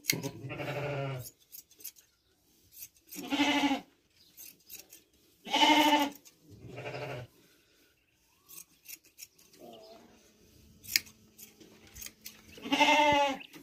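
Sheep bleating about five times. Each bleat is a short, wavering call, with the sharp snips of hand shears cutting fleece between them.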